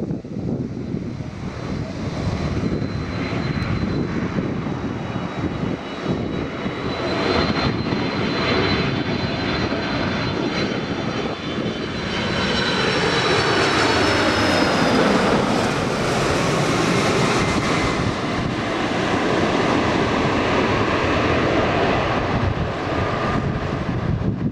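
Jet airliner's engines running as it passes, with a high fan whine that sinks slightly in pitch. The roar swells about halfway through and stays loud.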